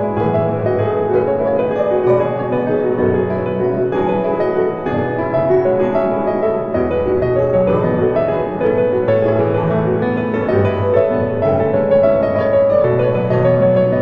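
Background music led by piano, with held notes and a bass line that shifts every second or two.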